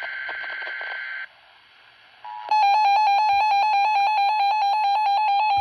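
A buzzy digital alert header tone, the data burst used to trigger weather radios, ends about a second in. After a short pause, the Radio Shack 12-258 weather radio's alert alarm sounds as a rapid train of high beeps, about eight or nine a second, signalling that it has activated on the test alert.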